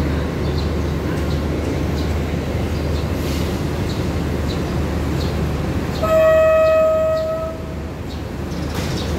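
A diesel train idles with a steady low rumble. About six seconds in, a train horn sounds one held note for about a second and a half, a departure signal answering the station officer's green flag.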